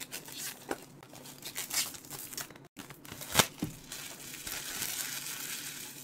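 Cellophane wrapping being crinkled and torn off a box by hand, with one sharp crack about three and a half seconds in and a steadier rustling over the last second and a half.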